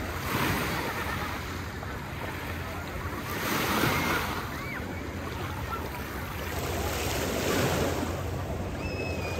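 Small sea waves washing in the shallows with water splashing, the rush swelling three times: just after the start, around four seconds in, and around seven to eight seconds in. Faint distant voices of beachgoers are also heard.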